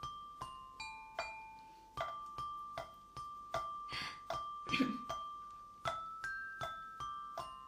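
Small glockenspiel-style metal bars struck with a little mallet, playing a slow, simple tune of about two to three notes a second, mostly on one repeated note with a few steps to other notes, each note ringing briefly and fading.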